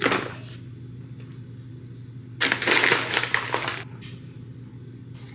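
A paper flour bag crinkling, then about a second and a half of scratchy scraping and stirring as flour is mixed into a sourdough starter in a ceramic bowl.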